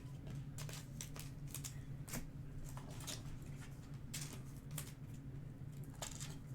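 Trading cards being handled and slid into plastic sleeves and top loaders: a run of quick, irregular swishes and light clicks over a steady low electrical hum.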